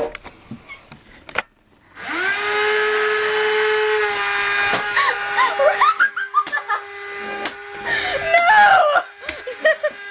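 Small electric motor of a remote-control toy car whining steadily, starting about two seconds in, with a few sharp clicks and high children's voices over it.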